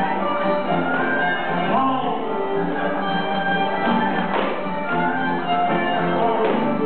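Live contra dance band playing a dance tune, a continuous melody over accompaniment.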